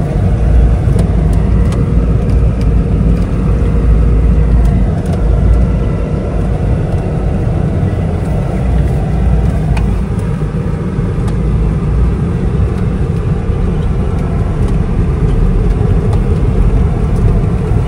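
Car driving slowly over a rough dirt track, heard from inside the cabin: a steady low engine and road rumble with scattered small knocks and rattles.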